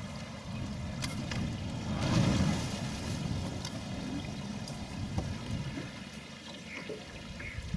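Low, uneven rumble of wind buffeting the camera microphone, swelling about two seconds in. A few short, high chirps come near the end.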